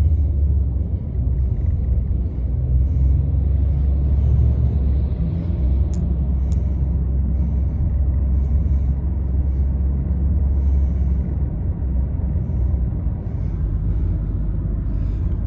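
Road noise inside a moving car: a steady low rumble of engine and tyres, easing slightly about eleven seconds in. Two faint clicks come around six seconds in.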